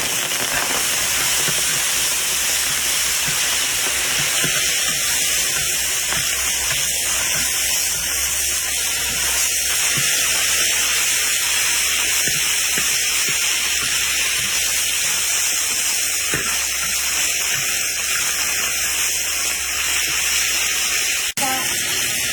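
Vegetable shoots (菜苔) stir-frying with dried chilies in a hot wok, giving a steady loud sizzle with a few faint knocks of the spatula. The sizzle breaks off for an instant near the end.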